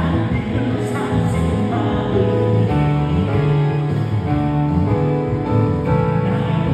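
A live worship band playing: electric guitar, bass guitar, keyboard and drums.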